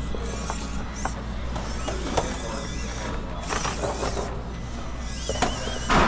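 A 1/18-scale Traxxas TRX-4M RC rock crawler driving over rocks: a light whir from its small electric motor and gears, with scattered clicks as its tyres and chassis meet the rock, and a louder clatter near the end.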